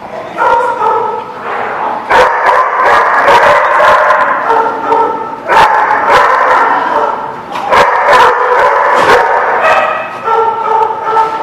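Several dogs barking and yipping over one another in a near-continuous chorus, with sharp single barks standing out every second or two.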